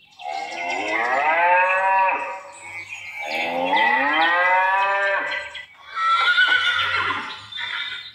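Recorded cow mooing twice from a children's sound book's button speaker, two long moos, followed by a shorter, different sound effect about six seconds in.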